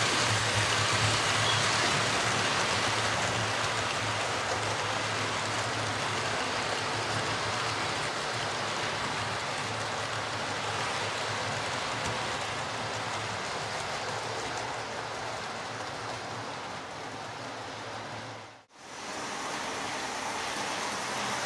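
Model Class 43 HST train running on the layout's track: a steady rushing of wheels on rail with a low motor hum, easing slightly in level. It drops out abruptly for a moment near the end, then resumes.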